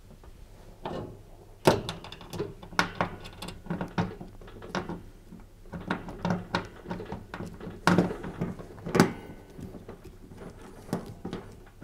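Hand screwdriver turning screws into a dishwasher's metal side to fix a new rail support wheel: irregular sharp metallic clicks and knocks, the loudest about two seconds in and again near eight and nine seconds.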